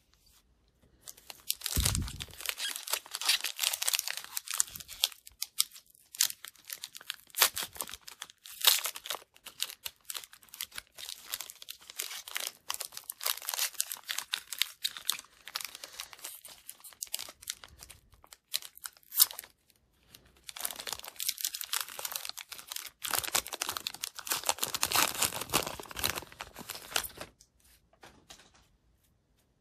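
Foil wrapper of a hockey trading-card pack crinkling and tearing as it is opened by hand. The crackle comes in several stretches with short pauses and stops near the end.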